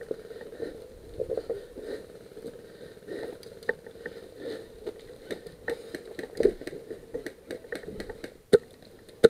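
Scattered sharp clicks and knocks at an irregular pace, with a louder knock near the end, over a steady low hum.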